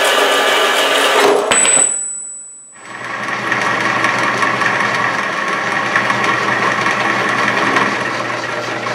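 A horizontal metal-cutting bandsaw cutting a steel bar, dying away about two seconds in. From about three seconds a vertical milling machine runs steadily with a low hum, its end mill cutting a notch into a steel bar held in the vise.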